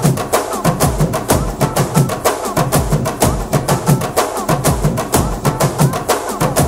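Upbeat Tamil film dance song: fast, dense percussion keeping a quick, steady beat, with a melody line over it.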